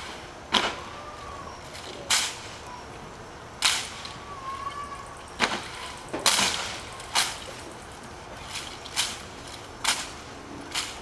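Sharp slaps and clacks of hands and rifles in a rifle drill performed without spoken commands, the rifles being M1 Garands. About ten single cracks come at uneven spacing, one every second or so.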